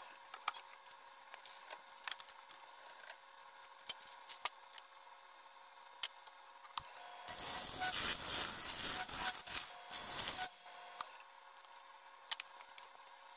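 Wood lathe running with a steady faint motor whine and scattered small ticks; about seven seconds in, the turning tool cuts into the spinning wood blank for about three seconds, a loud scraping cut that stops suddenly.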